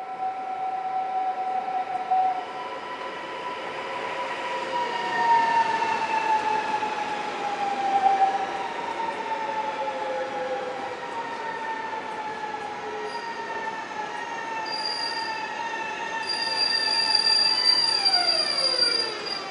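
NSB Type 72 electric multiple unit pulling into an underground station and braking to a stop. A set of whines falls slowly in pitch as the train slows, then drops steeply near the end as it halts, with a high steady squeal over the last few seconds.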